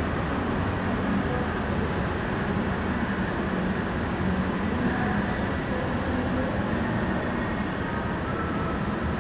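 Steady background ambience inside a shopping mall: an even hum, heaviest in the low range, with no distinct events standing out.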